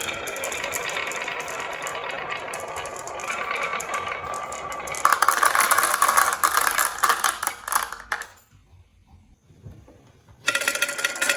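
Marbles rolling and clattering down a wooden HABA marble run in a dense run of clicks. The clicking grows louder about five seconds in, stops for about two seconds near the end, then starts again.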